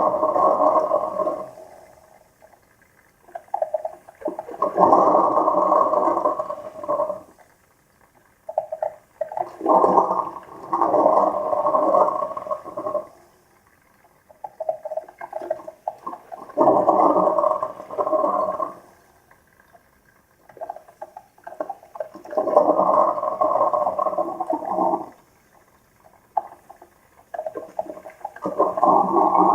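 Two coffee makers brewing at once, gurgling and sputtering as the hot water is pushed through. The gurgling comes in bursts of two to three seconds, about every five to six seconds, with quieter bubbling between.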